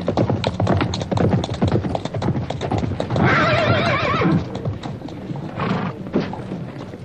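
Horse's hooves clopping quickly as it is ridden up and reined in, with a drawn-out whinny about three seconds in and a shorter one near the end.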